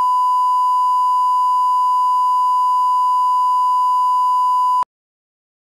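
A steady electronic test tone, a single unchanging pitch. It cuts off abruptly a little under five seconds in.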